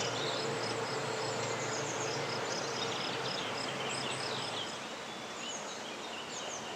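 Birds chirping and twittering, many short high calls overlapping throughout, over a steady low hum that fades about two-thirds of the way through.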